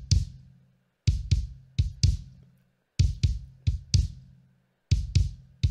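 Solo kick drum track playing a looped pattern: groups of four hits about every two seconds, each hit a sharp beater click over a deep low thud, with the low tone ringing on briefly after each group. It is the dry kick with no EQ boost or cut applied yet.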